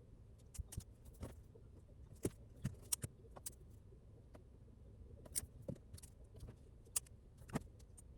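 Scattered small sharp clicks and ticks at an uneven pace over a low steady background hum.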